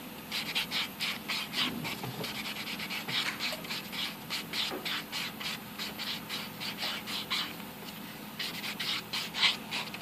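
Hand nail file rasping back and forth on white-tip acrylic nails in quick even strokes, about three or four a second, with a short pause shortly before the end.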